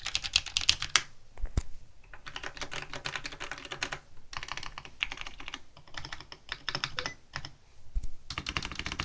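Fast typing on a WASD CODE 87-key keyboard with Cherry MX Clear tactile switches and low-profile ABS keycaps: dense runs of keystrokes broken by short pauses about a second in, around four seconds in and near the eighth second, with an occasional deeper thud among the clicks.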